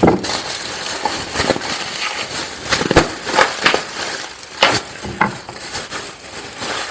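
Bubble wrap being popped by hand: an irregular run of sharp pops with crinkling plastic between them.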